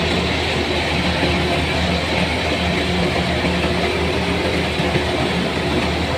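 An engine running steadily at constant speed, a low hum with a steady hiss above it, typical of the machinery used in rice harvesting.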